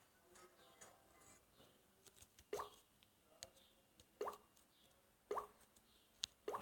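Near silence broken by three short, soft plops, each a quick upward blip in pitch, about a second or two apart.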